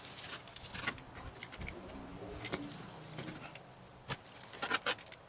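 A long slicing knife cutting through smoked beef brisket on a cutting board, with scattered light clicks and taps as the blade meets the board, the sharpest ones near the end.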